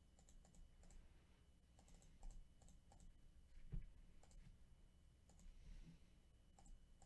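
Faint, irregular clicks of a computer mouse and keyboard.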